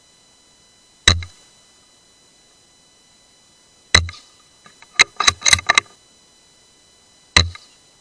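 Three single .17 HMR rifle shots, about one, four and seven seconds in, each a sharp crack with a short low thump, recorded by a scope-mounted camera. Between the second and third shots comes a quick run of sharp clicks. A faint high steady whine sits underneath.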